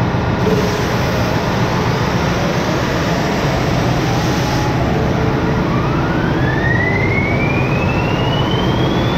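Loud, steady din of running marine diesel generators as another STX-built MAN diesel generator set is started, with a hiss for the first few seconds. From about halfway a whine rises steadily in pitch as the starting generator engine runs up to speed.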